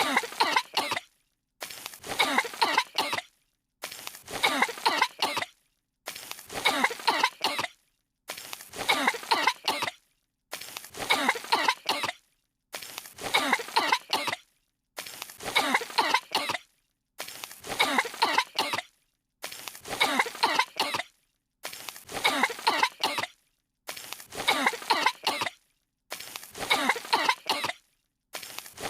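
Two cartoon girls' voices coughing on dust, a short fit of several coughs looped over and over, about one fit every two seconds with a brief silence between.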